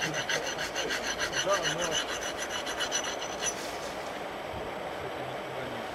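Rapid rhythmic rasping, several strokes a second, that stops about three and a half seconds in, leaving a steady hiss.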